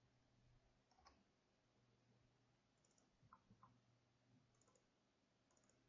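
Near silence with a few faint computer-mouse clicks: one about a second in, then a quick run of three a couple of seconds later.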